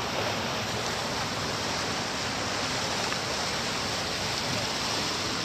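Steady rushing noise of wind and sea on the open deck of a ship, even and unbroken, with a low flutter.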